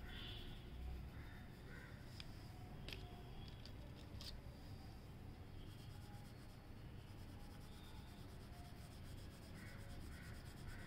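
Faint scratching of pencil lead on paper as a colored pencil shades in a drawing, with a few sharp clicks between about two and four seconds in.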